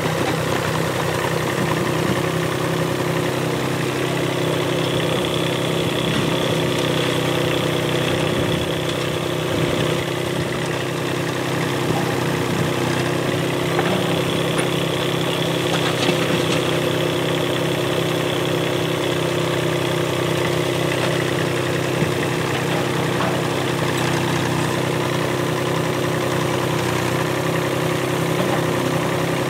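Yuchai YC15-7 mini excavator's diesel engine running steadily while the machine digs, with a faint high whine that comes and goes.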